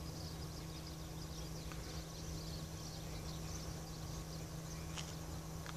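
Faint outdoor background noise with a steady low hum and a low rumble, and two brief clicks near the end.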